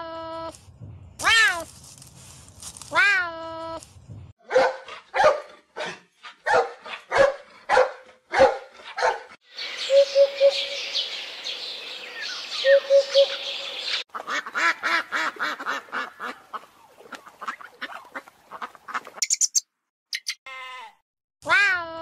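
A string of different animal calls: two arching, meow-like serval calls at the start, then a run of short rhythmic calls. A hoopoe gives its low three-note 'hoo-hoo-hoo' call twice over a haze of other birdsong, followed by more rapid calls and high chirps, and another serval call starts near the end.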